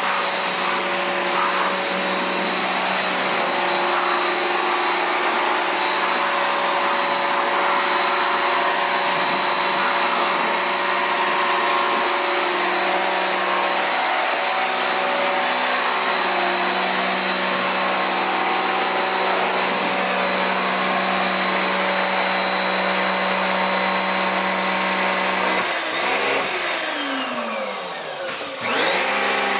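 Kärcher electric pressure washer running, a steady motor whine over the hiss of water spraying from the gun. Near the end the motor winds down in pitch almost to a stop, then quickly spins back up.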